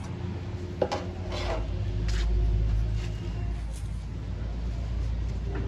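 A few light clicks and knocks of metal transmission parts, the removed valve body and oil pan, being handled in a metal tray, over a steady low hum.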